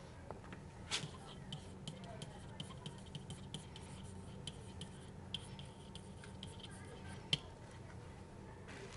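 Faint tapping and light scratching of a stylus writing on a pen tablet, over a low steady hum, with a louder click about a second in and another about seven seconds in.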